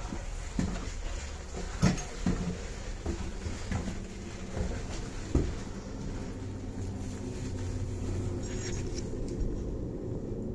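Irregular footsteps and knocks on hard debris, over a steady low hum.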